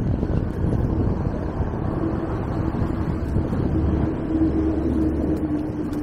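Wind buffeting the microphone of a camera on a moving electric bicycle, over low road and traffic noise. A faint steady whine comes in about two seconds in and holds.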